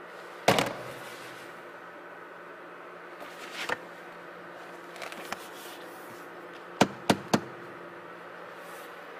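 A hand knocking and tapping on the cargo-area trim of a Genesis GV80 SUV: one heavier knock about half a second in, some lighter handling knocks in the middle, and three quick sharp taps about seven seconds in, over a steady low hum.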